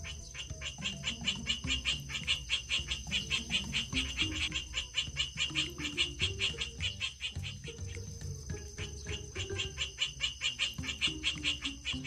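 Mitten crab crying: a fast, even pulsing chirr, about seven pulses a second, easing off briefly just past the middle and then picking up again. Soft background music plays underneath.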